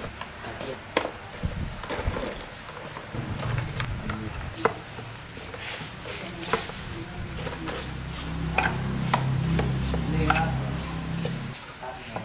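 Scattered knocks, taps and scraping from hand work on engine parts. A low hum comes in about three seconds in, grows louder near the end and cuts off shortly before the end.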